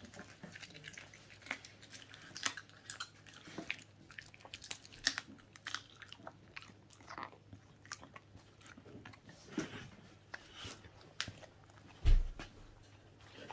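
Welsh corgi chewing and crunching through a raw whole chicken: irregular wet crunches and clicks. Near the end there is a single low thump.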